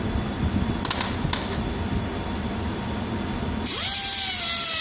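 A few light clicks of handling, then about three and a half seconds in a small air-powered grinder starts with a loud hiss of air and a steady whine that wavers slightly as it is pressed onto the tractor pump housing's gasket surface.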